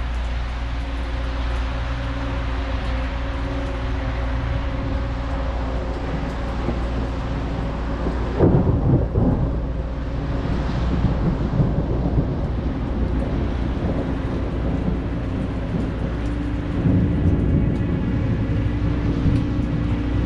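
Rolling thunder, loudest in a swell about eight and a half seconds in and rising again more faintly near seventeen seconds. Underneath is a steady low drone with a hum.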